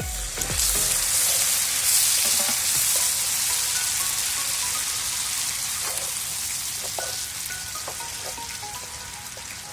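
Water poured into a hot pan of ghee, fried cashews and jaggery. It sizzles hard at once, is loudest about two seconds in, then slowly dies down as the jaggery melts.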